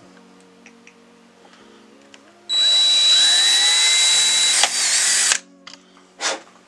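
Power drill boring into the aluminium down tube of an e-bike frame, running for about three seconds with a steady high whine and a tone that rises as it speeds up, then stopping. A short sharp noise follows about a second later.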